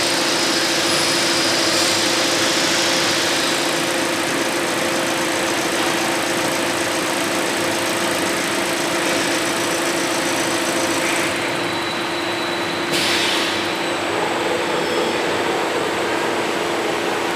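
EE-WB-4 mattress tape edge sewing machine running steadily with a constant low hum. The high hiss drops away about two-thirds of the way through, and a short burst of hiss follows soon after.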